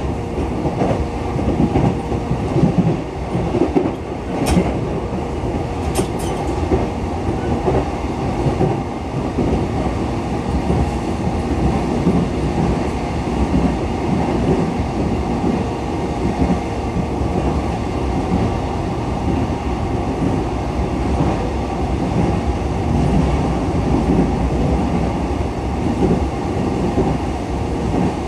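A JR East E233-7000 series electric train running at speed: a steady rumble of wheels on rail with a faint steady hum. Two brief sharp high clicks come about four and a half and six seconds in.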